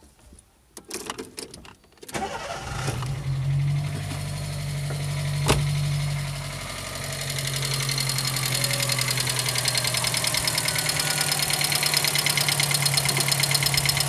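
Volkswagen Gol G4's EA111 four-cylinder engine started with the key, catching about two seconds in and then idling steadily. From about eight seconds in a fast, even ticking runs over the idle. The engine is being run to check for a misfire traced to a faulty spark plug lead leaking spark at the coil terminal.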